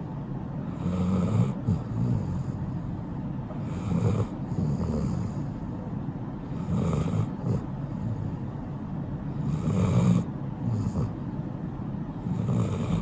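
Golden retriever snoring in her sleep, one snoring breath about every three seconds.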